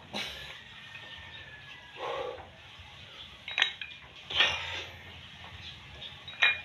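A man's forceful breaths blown out through pursed lips during dumbbell curls, twice. A couple of sharp metallic clinks come from the loose iron plates of the dumbbells.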